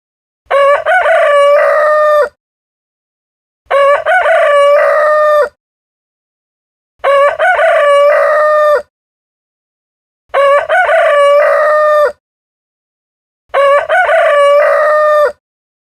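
Rooster crowing: five identical cock-a-doodle-doo calls, each just under two seconds long, repeating about every three seconds with silence between, the same crow looped over and over.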